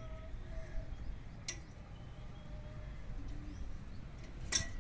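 Faint outdoor ambience: a steady low rumble with two short sharp clicks, one about a second and a half in and a louder one near the end.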